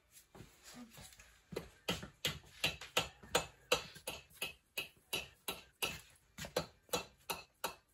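Hammer tapping repeatedly on the cast-iron cylinder of a 1985 Harley-Davidson Ironhead Sportster, about three even blows a second after a few lighter taps, to knock the cylinder loose from the crankcase during a top-end teardown.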